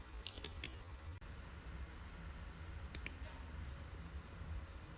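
A few computer mouse clicks, two close together about half a second in and another pair about three seconds in, over a low steady hum.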